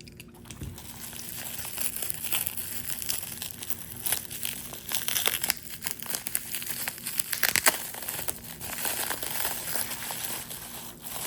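Packing material crinkling and rustling as items are unwrapped by hand, with many irregular sharp crackles.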